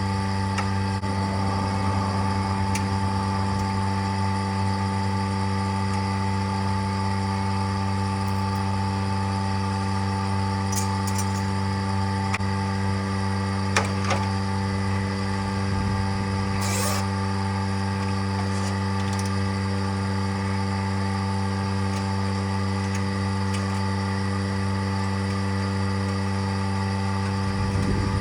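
Electric vacuum pump running steadily, evacuating a car's air-conditioning system before it is recharged. It makes a constant motor hum, with a short click about halfway through.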